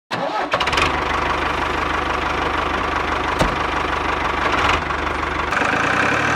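A small electric motor running steadily with a low buzz, starting abruptly, its sound changing near the end.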